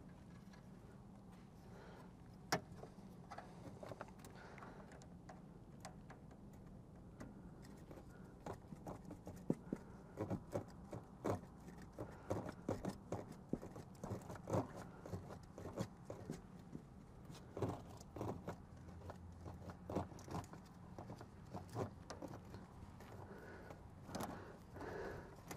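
Faint, irregular clicks and metallic clinks of hand tools and fittings being handled, coming thickest through the middle stretch at a few a second, over a low steady hum.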